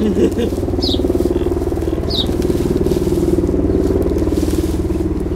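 Helicopter flying overhead, a steady pulsing drone, with three short high peeps from Muscovy ducklings about a second apart in the first half.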